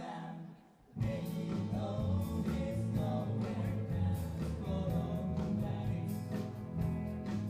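Live band music: a sung vocal harmony ends, and about a second in the full band comes in with drums, bass, guitar and singing.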